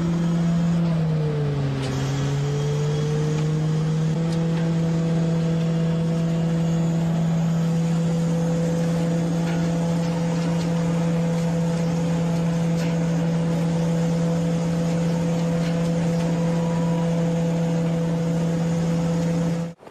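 Cherry harvesting machine running with a steady mechanical hum from its engine and hydraulic drive. The pitch dips briefly about a second in and recovers, then holds steady before stopping abruptly near the end.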